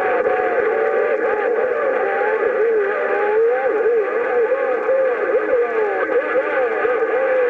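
Another station's transmission coming through a CB radio's speaker on 11-metre skip: a garbled, wavering voice over steady hiss and tone, too distorted to make out words.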